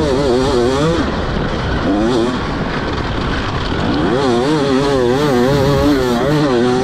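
2024 KTM 300 XC-W two-stroke enduro bike engine with an Akrapovic slip-on exhaust, at race pace, its note warbling quickly up and down as the throttle is worked over the terrain. It eases off between about one and four seconds in, then picks up and warbles again, over a steady rushing noise.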